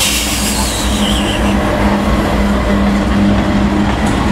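Two GE AC4400CW diesel-electric locomotives passing close by, their 16-cylinder GE FDL diesel engines running with a steady low drone. There is a brief high hiss in the first second or so.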